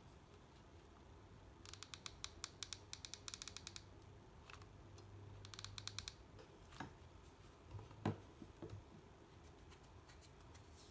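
Small parts being handled during a charger repair: two quick runs of sharp, snipping-like clicks, then a few soft knocks with one louder knock about eight seconds in.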